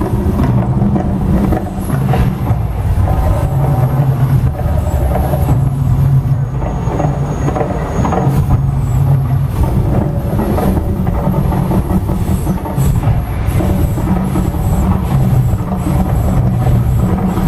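Mirage volcano show erupting: a loud, continuous deep rumble from the show's sound effects and flame jets.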